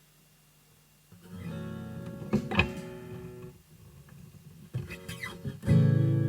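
Martin HD-28 acoustic guitar being played. About a second of faint steady hum comes first, then picked notes and strums start. The playing eases off in the middle and comes back much louder near the end.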